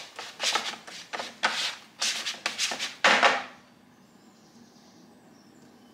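A plastic scraper dragged repeatedly across a perforated dumpling plate, pushing soft dough through the holes into boiling water. It makes about seven quick scraping strokes, roughly two a second, which stop about three and a half seconds in.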